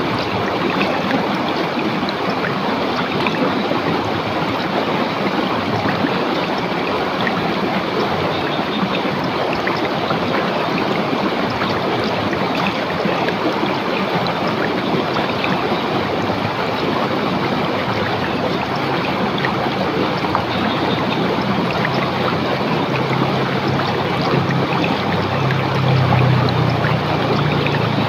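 A rocky river's water rushing and splashing over stones in a steady, even wash, with a deeper rush swelling for a few seconds near the end.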